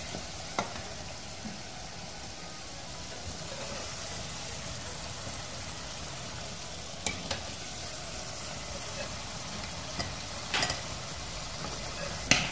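Potato pieces deep-frying in hot oil in a metal karahi: a steady sizzling hiss, with a few sharp clinks of a metal slotted spoon against the pan.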